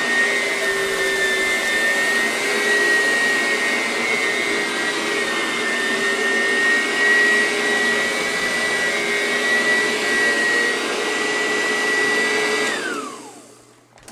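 Eureka Sanitaire upright vacuum cleaner running with a steady high-pitched whine over its motor noise. About 13 seconds in it is switched off and the motor winds down, its whine falling in pitch as it fades.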